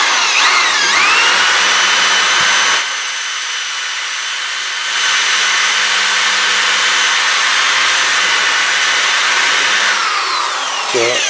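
Power drill turning an Irwin Speedbor spade bit into wood. The motor whine rises as it spins up, runs steadily with a slightly quieter stretch about three seconds in, and falls away as the drill winds down near the end.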